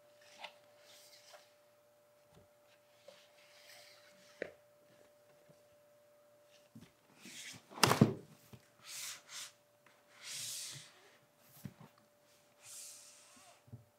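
A large paper poster and a cardboard model-kit box being handled: paper rustling in several short bursts, with one loud thump a little past halfway. A faint steady hum runs underneath.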